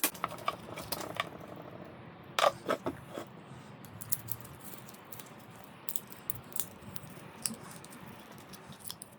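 Scattered light clicks and taps of small hard objects being handled, over a faint low hum, with a few sharper knocks about two and a half to three seconds in.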